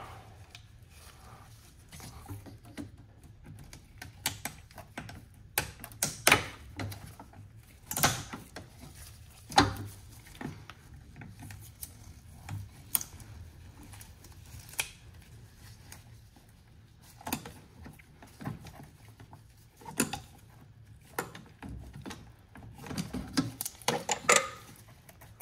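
Scattered clicks and knocks of pliers on a hose clamp while a rubber coolant hose is worked loose from a plastic coolant reservoir, with a burst of handling noise near the end.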